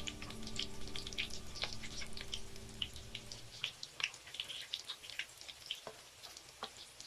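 Scattered crackles and pops of potato pieces frying in hot oil, thinning out toward the end. A low steady hum underneath stops about three and a half seconds in.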